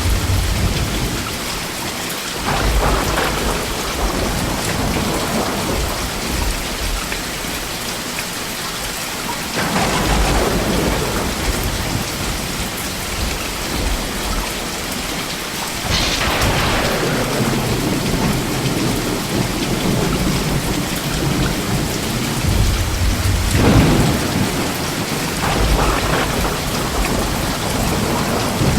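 Steady rain falling, with thunder rumbling up and fading several times.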